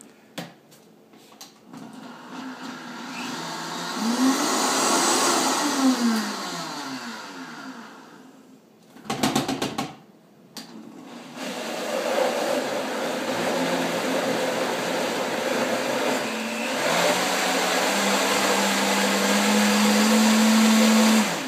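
Countertop blender puréeing a thick cauliflower and roasted red pepper dip: the motor spins up over a couple of seconds, runs loud, then falls away, with a brief burst of knocks in between. It then runs again for about ten seconds, its pitch stepping higher near the end, and cuts off suddenly.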